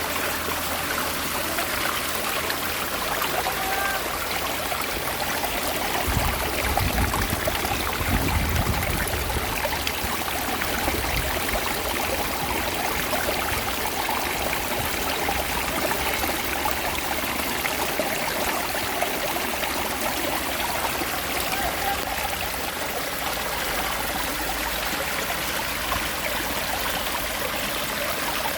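Mountain stream running over rocks: a steady rush of water. A low rumble rises briefly about six seconds in and fades by nine.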